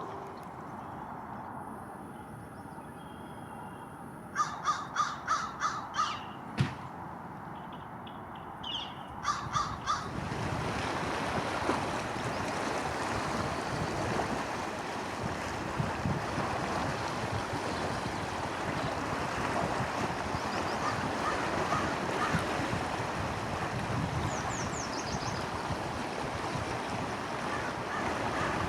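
A crow-family bird calling: a quick run of about seven loud calls, then two or three more a few seconds later. After that a steady rushing noise takes over, with a few faint high chirps of small birds.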